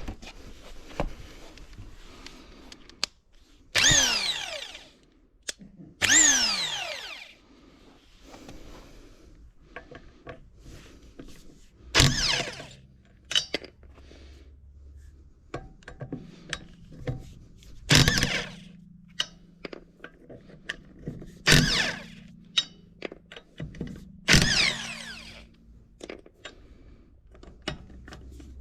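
A corded Parkside electric impact wrench is run in six short bursts. Each ends in a falling whine as the motor coasts down after the trigger is released. Small clicks and knocks come between the bursts, from the tool being handled.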